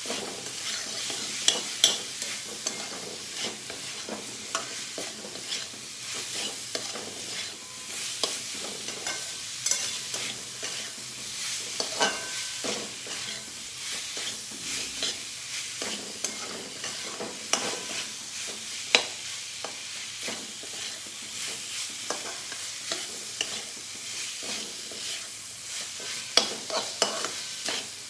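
Boiled peas and mushrooms frying in oily masala in a metal kadhai, sizzling steadily, while a metal spatula stirs them continuously, scraping and clicking against the pan many times.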